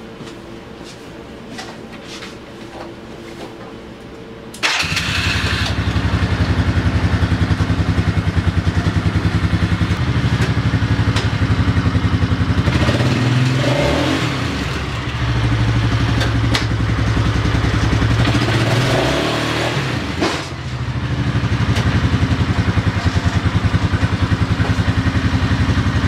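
Liquid-cooled ATV engine running with its choke cable freshly readjusted. It is much quieter for the first few seconds, then suddenly much louder about five seconds in. The engine note then changes twice, around the middle and again about three-quarters through, and it runs smoothly with no stumbling.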